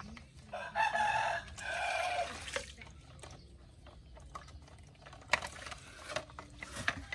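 A rooster crowing once, a pitched call of about two seconds starting about half a second in. A few light clicks and knocks follow near the end, as the plastic toy trucks are handled.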